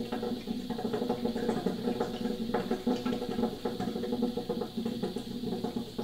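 GE refrigerator making a rapid, uneven bubbling, drum-like knocking with a low hum, set off by shutting its door. The installer likens it to suction pulling on the condensate drain line, like a straw.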